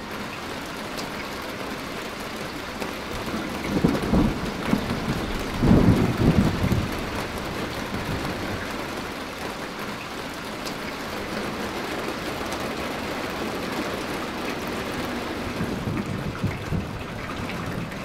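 Steady rain falling, an even hiss of drops, with two short low rumbles about four and six seconds in.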